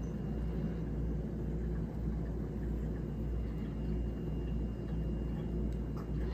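Steady low hum and rumble with a faint thin high tone above it: indoor room tone.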